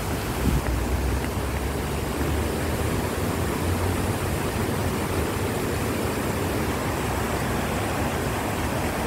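Large tiered fountain with many arcing jets splashing into its basin: a steady rushing of falling water.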